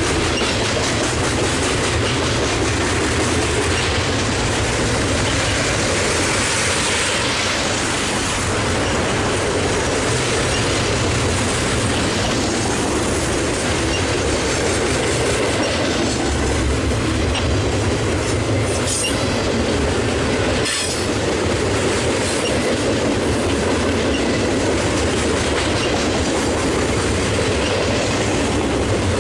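BNSF double-stack intermodal freight cars rolling past close by: a loud, steady sound of steel wheels running on the rails.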